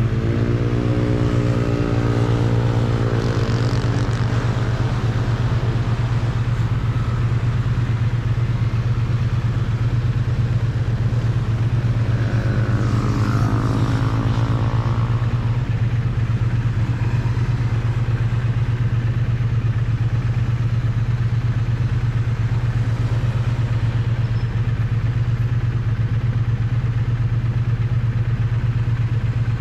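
Triumph Bonneville T100's parallel-twin engine and exhaust running at a steady, unchanging pace, recorded close to the exhaust. Two brief sweeps in pitch pass over it, one near the start and one about halfway in.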